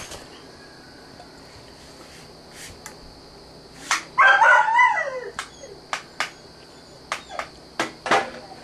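A brief, falling vocal sound from a person's voice about four seconds in, followed by a series of short, sharp clicks and knocks.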